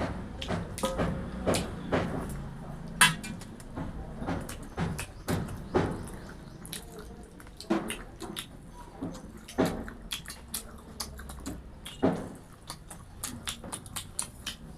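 Close-up eating sounds of rice and fried food: irregular wet chewing, lip smacks and mouth clicks, with an occasional light crunch.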